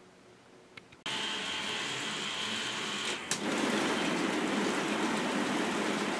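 K'nex robot arm's plastic gear trains and transmissions running steadily, starting abruptly about a second in. A click just after three seconds, after which the running gets a little louder and fuller.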